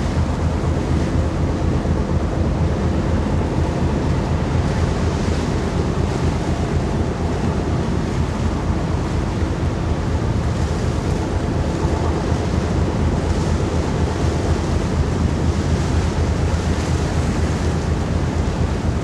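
Wind buffeting the microphone over a steady low hum that fits the MV Armorique ferry's engines as she comes in to berth. It stays at an even level throughout.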